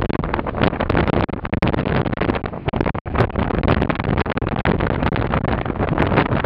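Strong wind buffeting the microphone over the steady noise of an Embraer 190's twin turbofan jet engines, with a brief dropout about three seconds in.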